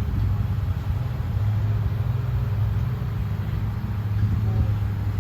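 A car driving, with a steady low drone of engine and road noise.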